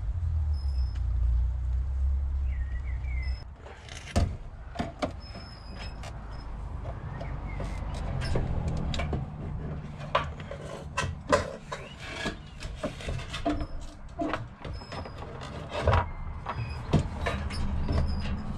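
Irregular clicks, knocks and clatter as a Subaru fuel pump assembly's metal mounting plate and its fittings are handled and worked down into the fuel tank opening and its rubber gasket. A low rumble fills the first three seconds or so, then stops.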